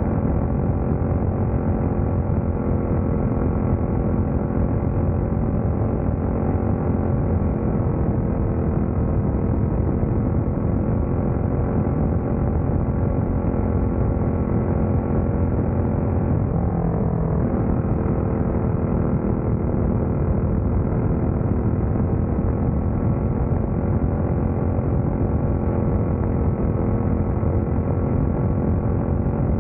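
Open-wheel dirt-track race car's engine running hard at racing speed, picked up by an onboard camera with a heavy low rumble. The pitch holds steady, dipping briefly and climbing back a little past halfway.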